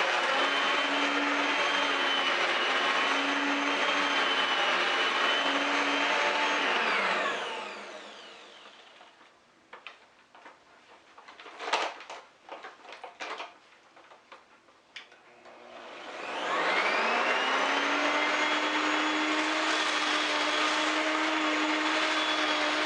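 Vacuum cleaner motor running with a steady whine, then switched off and winding down about seven seconds in. During the quiet there are a few clicks and knocks. It is switched back on about sixteen seconds in and spins up with a rising whine to a steady run.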